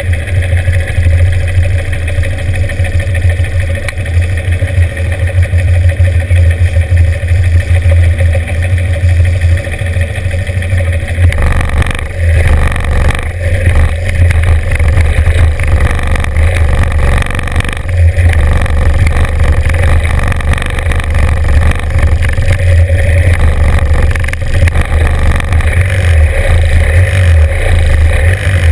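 Norton 750 Commando's air-cooled parallel-twin engine idling loudly close to the microphone, with other classic motorcycle engines running around it. About twelve seconds in the engine note grows busier and rougher, with a few short throttle blips as the bikes creep forward.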